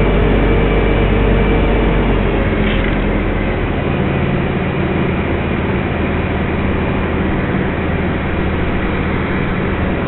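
Heavy engine, such as a mobile crane's, running steadily and loudly; its note shifts about three to four seconds in as the engine speed or load changes.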